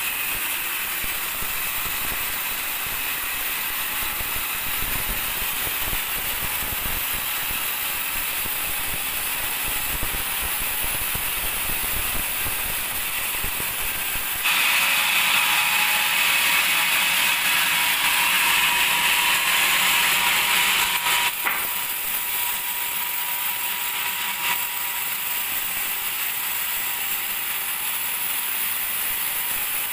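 Band sawmill running steadily on teak. About halfway through, a louder, hissing stretch of some seven seconds as the blade cuts through the log ends abruptly.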